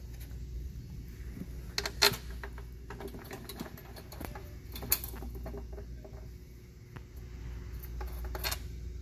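Irregular small clicks and taps of a bolt being turned in by hand and the plastic crankcase breather housing being handled against the engine. There are a few sharper knocks about two seconds in, near the middle and near the end.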